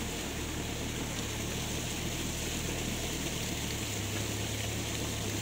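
A small engine running steadily with a low hum, its tone shifting slightly about three and a half seconds in, over a steady hiss.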